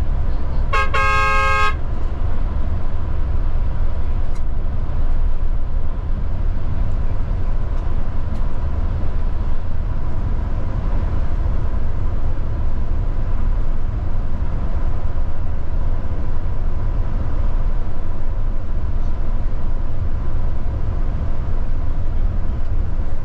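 Steady low rumble of a Higer coach travelling on the road, with a vehicle horn sounding once, briefly, about a second in.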